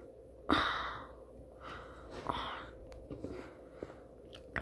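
A child breathing close to the microphone: a sudden sharp breath about half a second in, and another breathy rush about two seconds in.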